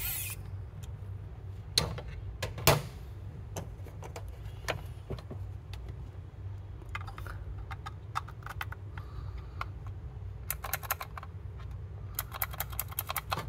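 A cordless electric screwdriver's whine stops just after the start, then hard 3D-printed plastic parts click and knock as the assembled handle is handled and turned. There are two louder knocks about two to three seconds in, and runs of rapid clicking near the end, over a steady low hum.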